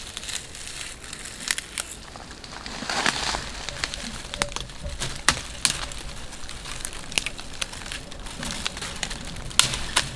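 Dry dead twigs and small branches being snapped off by hand, a run of sharp cracks with brittle crackling and rustling between them.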